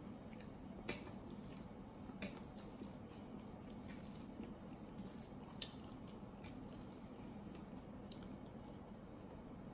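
Quiet eating sounds: a metal fork picking up pasta from a foil-lined tray, making a scatter of short, sharp clicks and scrapes, with soft chewing in between.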